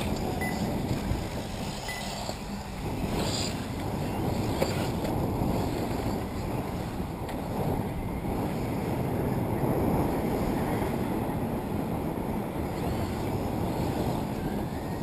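Steady low wind rumble buffeting the microphone, over faint noise from 1/8-scale electric RC buggies racing on the track.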